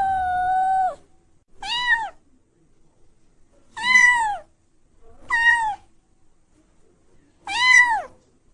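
Kitten meowing repeatedly in a high voice: a long meow that ends about a second in, then four shorter meows, each rising then falling, spaced a second and a half to two seconds apart.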